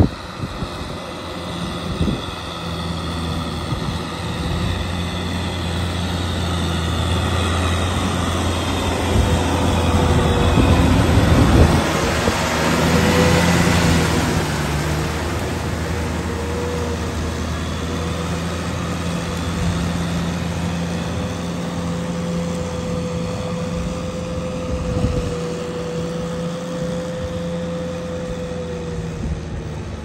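Tractor engine running steadily under load while its rear rotary tiller churns through a flooded rice paddy. It grows louder to a peak about twelve seconds in, then eases off a little.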